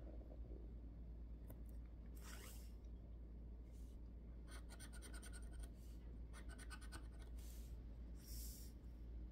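A scraper scratching the coating off a lottery scratch card, in several short bursts of quick scraping strokes.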